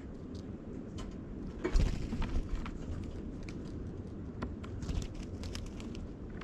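Birds at a feeder: scattered short taps and clicks from pecking and landing over a steady low rumble, with a louder thump and flurry of clicks about two seconds in.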